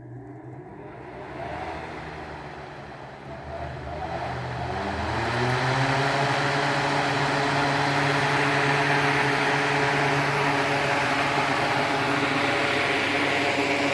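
A motor speeding up over the first five or six seconds, then running steadily with a hum and a hiss.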